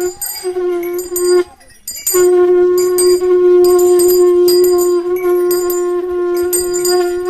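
A horn blown on one long steady note, broken briefly near the start and again for about half a second around one and a half seconds in, with small bells jingling in a quick rhythm over it.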